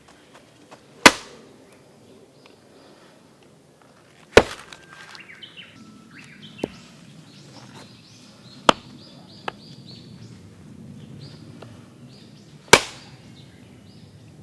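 Gränsfors Bruk Wildlife hatchet chopping firewood: four loud chops a few seconds apart, with a couple of lighter knocks between them.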